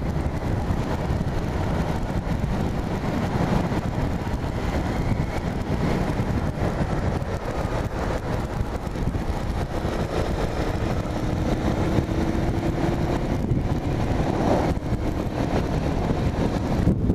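Motorcycle being ridden: the engine running under steady wind and road noise.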